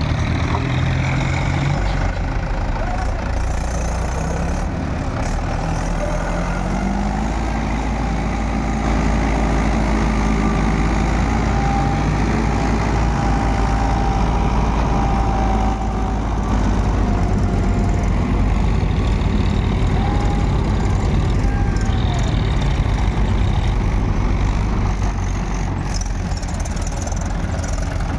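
Mahindra tractor's diesel engine running steadily under load as the tractor works through deep mud, its note rising about six seconds in.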